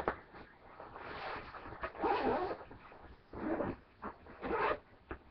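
Backpack zipper being pulled open on the main compartment in several short runs, with the bag's fabric rustling.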